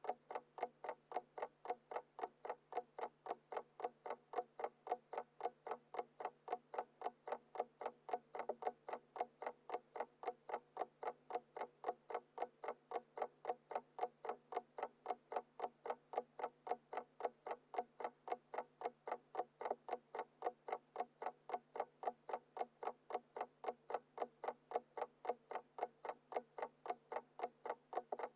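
Alarm clock ticking: quick, even, unbroken ticks, several a second.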